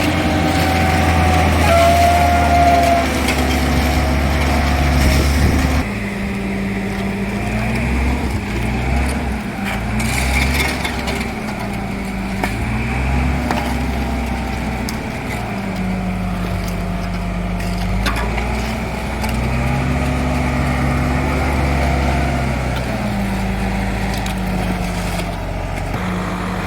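Diesel engine of a heavy road-repair machine running, steady at first, then revving up and down again and again as it works.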